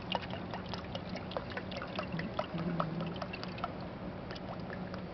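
Water pouring from a plastic bottle into a plastic cup: a continuous stream with many small irregular splashing ticks.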